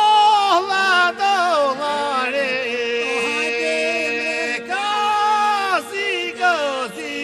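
Albanian folk song: a male voice singing long, ornamented notes that slide between pitches over a steady drone.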